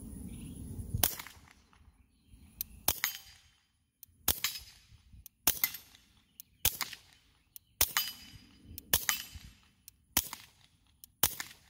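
Ruger Mark IV 22/45 Tactical .22 pistol firing supersonic rounds through a SilencerCo .22 suppressor: nine sharp shots about a second apart, with fainter ticks between them.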